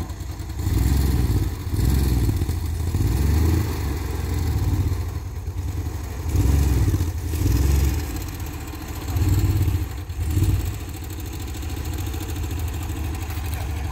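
VW Kombi van's engine idling and revving up in repeated short bursts as the van is manoeuvred back and forth to turn it around on a dirt clearing.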